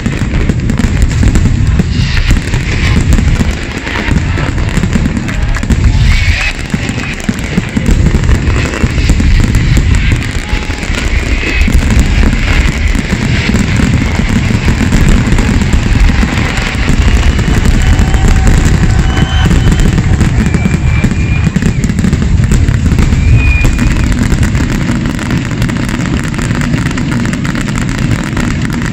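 A dense barrage of aerial firework shells bursting, the booms following so closely that they merge into one continuous rumble.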